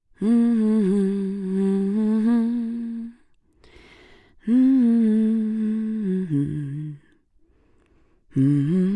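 A woman humming a wordless melody in three phrases with short pauses between them; the second phrase drops lower in pitch as it ends.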